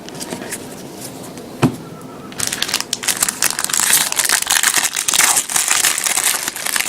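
A few light clicks of cards being handled and one sharp knock, then from about two and a half seconds in a trading card pack's wrapper being torn open and crinkled.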